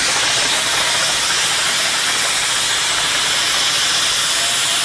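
Steady loud hiss of steam escaping from steam traction engines.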